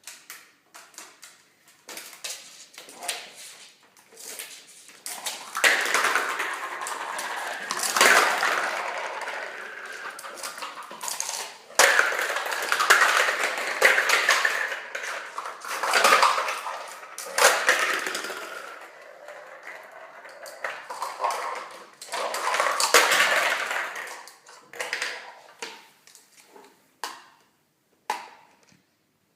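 Small hard objects clattering and scraping along a hard surface as a cockatoo shoves them like a bulldozer. There are scattered clicks and clinks, with several long scraping runs a few seconds each.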